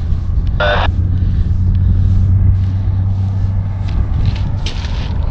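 Low, steady diesel engine rumble that swells over the first couple of seconds, from the locomotives of an approaching Union Pacific freight train. A brief sharp noise comes just under a second in.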